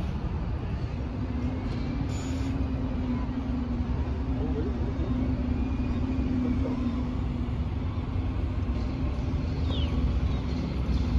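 Single-deck bus pulling away and driving toward the listener, its engine a steady low drone over traffic rumble, growing a little louder as it comes closer.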